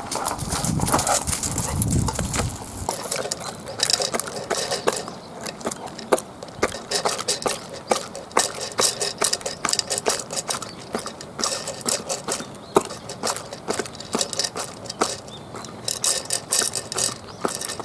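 Elderly mixed-breed dog eating its dinner fast: a quick, irregular run of sharp clicks and crunches, with a low rumble in the first few seconds.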